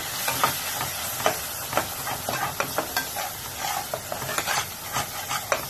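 Metal spoon stirring and scraping a spice paste frying in oil and ghee in a metal pan: a steady sizzle with frequent, irregular sharp clicks of the spoon against the pan. The masala is being fried down (kosha) until the oil separates from it.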